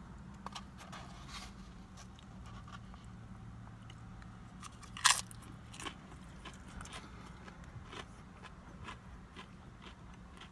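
Close-up chewing and crunching of tortilla chips, with scattered small crackles and one sharp, loud crunch about five seconds in.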